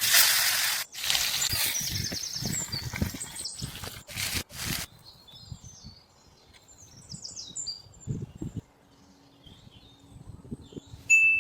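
A loud hiss for about the first five seconds, breaking off briefly twice, then small birds chirping in short repeated notes, with a sharp high note right at the end.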